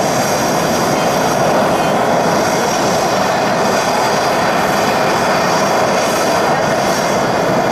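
Mitsubishi F-2 fighter's single F110 turbofan running at taxi power as the jet rolls by close at hand: a loud, steady roar with a thin high turbine whine above it.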